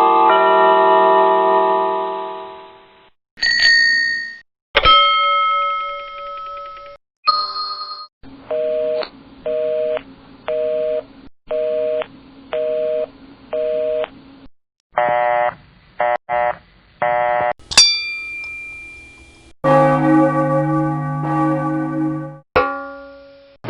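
A string of different bell sound effects, one after another. There is a ringing multi-tone chime, several single struck dings that ring out and fade, a run of short rings repeated evenly under a second apart, and near the end a fuller, deeper ringing tone.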